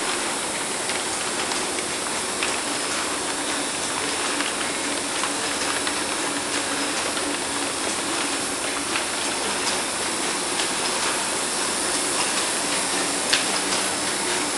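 Automatic paper bag making machine running: a steady mechanical whir and hiss with scattered light clicks, and one sharper click near the end.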